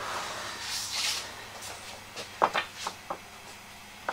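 Aluminium T-track being set into a slot in a wooden table top: a soft rubbing, then a handful of light clicks and knocks as it is pressed down to seat, with a sharper click near the end.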